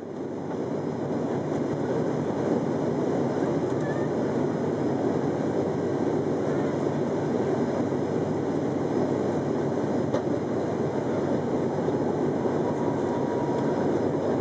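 Steady cabin noise of an ATR 72-500 turboprop airliner in flight, heard from a seat beside the propeller: the drone of the Pratt & Whitney PW127 engine and its six-blade propeller under a rushing hiss. It fades in at the start.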